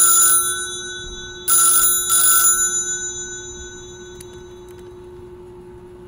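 Telephone ringing in a double-ring pattern: a ring just ending at the start, then a pair of rings about one and a half seconds in, fading out after each. A steady low hum runs underneath.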